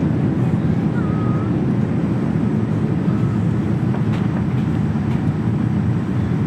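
Steady jet airliner cabin noise during the descent: a deep, even rumble of engine and airflow heard from inside the cabin.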